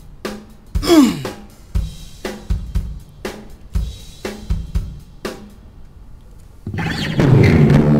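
Drum-kit pattern (kick, snare, hi-hat) played through an Ibanez DM1000 digital delay set to a shorter delay time, the hits followed by their echoes, with a falling pitch sweep about a second in. Near the end a louder, sustained stretch of music with guitar-like tones comes in.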